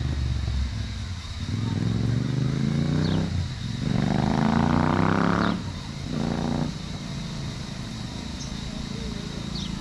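Royal Enfield Super Meteor 650's 648 cc parallel-twin with an aftermarket Rhino Racing exhaust, revving up in several pulls with rising pitch. There are short breaks between the pulls, and the strongest comes about halfway. For the last few seconds it settles to a lower, steady running sound.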